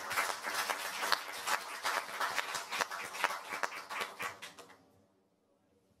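Small audience applauding at the end of a talk, dying away about three quarters of the way through.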